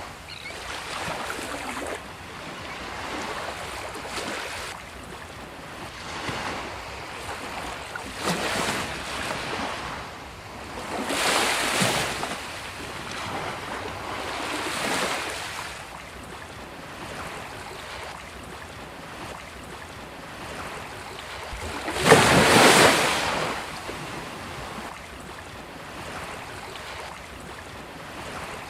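Sea waves breaking and washing up on a beach, swelling and falling back every few seconds, with the loudest wave crashing about three-quarters of the way through.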